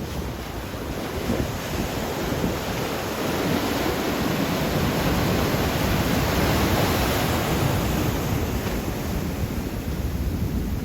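Ocean surf breaking on the beach, a wash of noise that swells over several seconds and eases off again, with wind buffeting the microphone.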